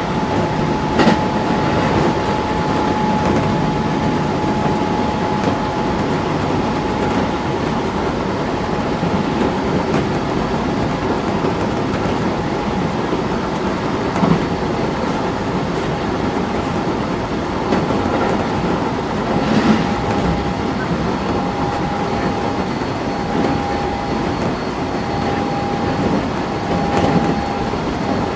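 Keisei 3400-series electric train heard from inside the passenger car while running: a steady rumble of wheels on rail with a few sharp knocks from rail joints. A thin steady whine runs over it and comes and goes in the second half.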